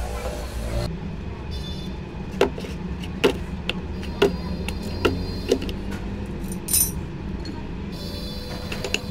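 Six or so sharp knocks at uneven intervals over a steady low hum.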